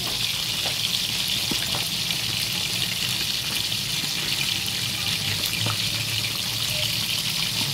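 Whole fish shallow-frying in hot oil in an aluminium wok: a steady sizzle with a faint crackle, and a low hum underneath.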